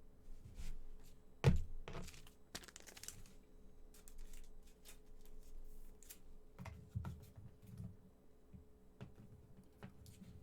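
Trading cards and pack wrappers being handled on a table: scattered clicks, taps and light rustling, with a sharp knock about a second and a half in and a short crinkle of wrapper soon after.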